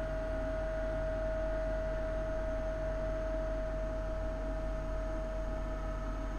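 A steady pure tone held unchanged, like a sustained tuning-fork note, over a faint low hum.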